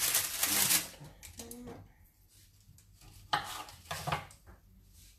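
Kitchen handling noise while a tomato tart is decorated. A loud rustling stops about a second in. Later come two sharp knocks and clinks of dishes and utensils, about half a second apart.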